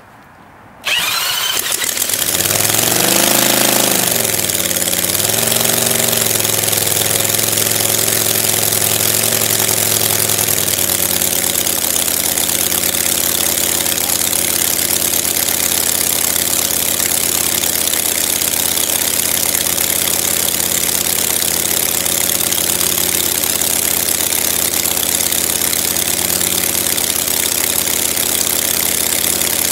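Home-built 1/3-scale model of a Kinner B-5 five-cylinder radial engine, started without choke: spun by an electric drill on the prop hub, it fires about a second in. Its speed surges up and down for several seconds, then it settles into a steady run driving its wooden propeller.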